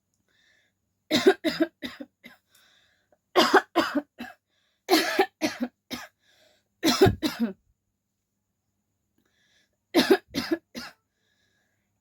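A person coughing in short bouts of three or four coughs at a time, five bouts in all with pauses of a second or two between them.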